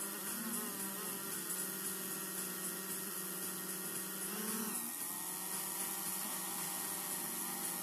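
DJI Mavic 2 Zoom quadcopter's propellers whining steadily in flight. The pitch swings up and back down briefly about four and a half seconds in as the drone climbs.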